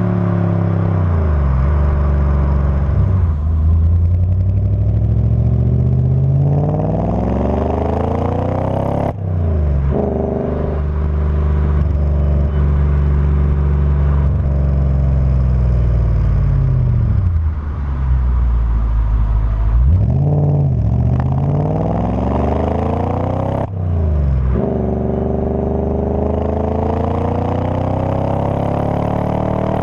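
Audi S4's 4.2-litre V8 through a Milltek Sport exhaust, accelerating hard. The revs climb, drop sharply and climb again several times as it shifts up through the gears, with a steadier cruising stretch part way through.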